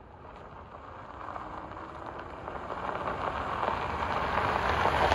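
Honda SUV's tyres crunching and crackling over a loose gravel road as it approaches, growing steadily louder.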